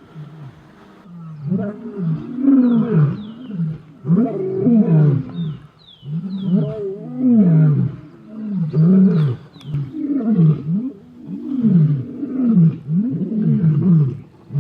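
Male African lions roaring: a long sequence of deep, rising-and-falling roars and grunts, about one a second, starting about a second in, from males of a coalition chasing off a rival male.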